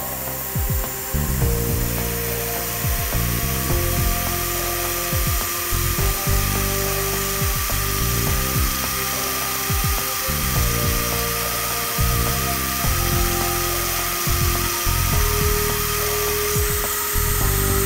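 A milling machine's end mill cuts into an aluminium block under mist coolant: a steady spray hiss with a faint cutting whine, which stops suddenly at the end, over background music with a beat.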